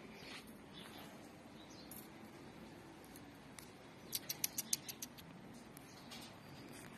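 A kitten's claws clicking and scratching on a door as it climbs: mostly faint, with a quick run of about seven sharp clicks a little past halfway.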